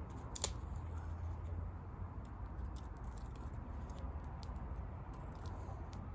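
Wood fire crackling, with scattered small pops and one sharper pop about half a second in, over a steady low rumble.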